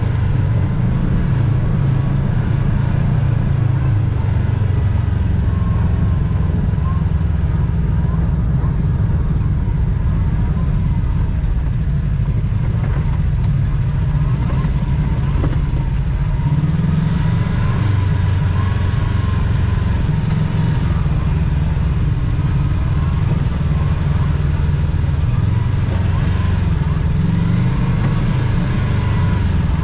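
Side-by-side UTV engine running steadily, loud and even in level throughout.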